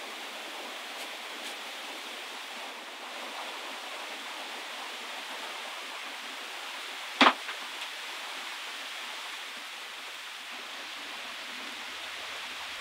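Steady hiss of rain, with one loud, sharp snap about seven seconds in.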